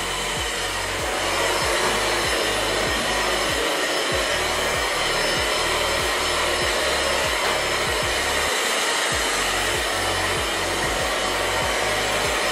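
Kaisa Villa stick vacuum cleaner running steadily: the high whine of its small motor and the rush of air through it.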